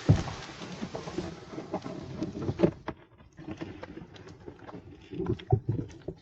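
A kayak knocking and scraping as someone climbs aboard and pushes off into the water, with a heavy thump at the very start and several more knocks and thumps later, over a rushing noise that dies away after about three seconds.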